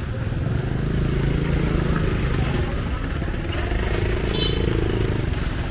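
Busy street ambience: vehicle engines running in passing traffic, with voices in the background and a brief high-pitched sound about four seconds in.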